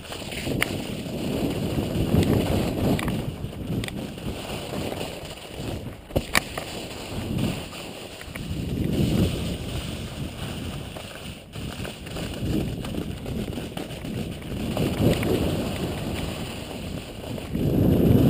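Wind buffeting an action camera's microphone during a ski descent, swelling and fading every few seconds, over the hiss of skis sliding on snow. One sharp click about six seconds in.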